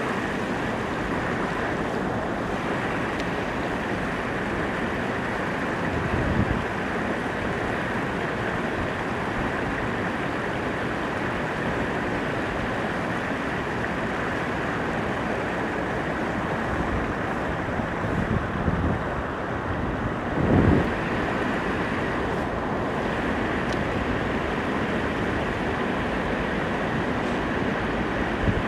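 Steady rushing noise of wind and moving water, with a brief louder gust or bump about twenty seconds in.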